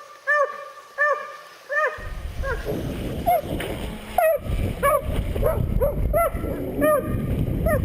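A hound barking over and over in short, high, arched yelps, about one every half second. About two seconds in, a loud, steady rushing noise joins it.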